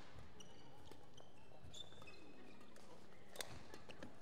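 Badminton rally: rackets striking the shuttlecock, with the sharpest hit about three and a half seconds in, and short squeaks of court shoes on the hall floor.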